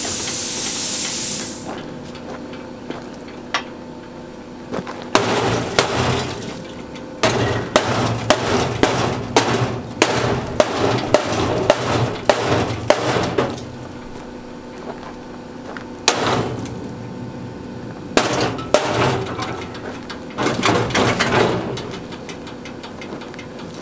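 A plasma cutter's air hiss cuts off about a second and a half in. Then come several bursts of clanking and rattling sheet metal as the dishwasher's cut-apart internal pieces are knocked and worked loose, the longest lasting about six seconds.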